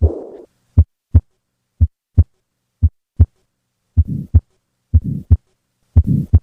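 Recorded heart sounds: paired beats about once a second. A noisy murmur fills the gap between the first and second sound of each beat near the start and again from about four seconds in, while the beats in between are clean. This is the systolic murmur of tetralogy of Fallot.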